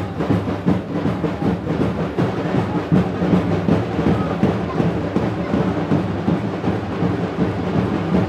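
Loud, drum-heavy music with thick, rapid drumbeats.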